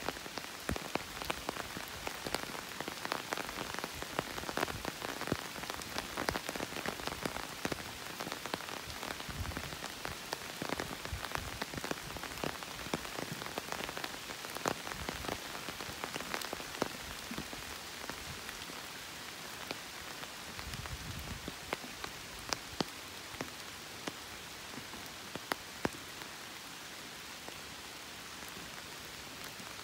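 Steady rain falling, a continuous hiss dotted with many sharp individual drop ticks, which come thickest in the first half.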